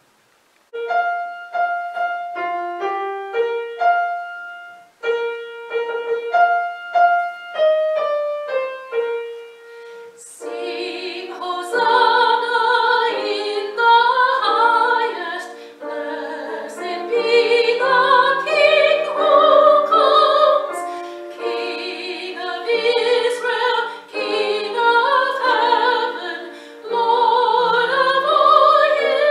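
A piano plays a slow introduction of single notes for about ten seconds. Then a woman sings a solo with a wide vibrato over the piano accompaniment.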